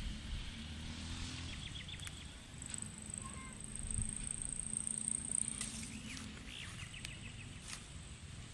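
Rural outdoor ambience: two quick runs of rapid bird chirps, a steady high insect drone that swells in the middle, and a low rumble underneath.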